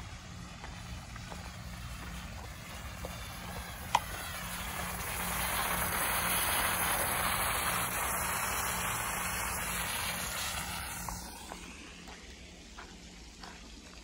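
A passing vehicle: its noise swells over a few seconds, is loudest around the middle and fades away before the end. A single sharp click comes about a third of the way in.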